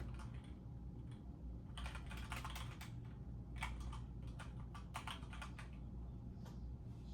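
Typing a web search on a keyboard: runs of quick key clicks, mostly between about two and five seconds in, over a steady low hum.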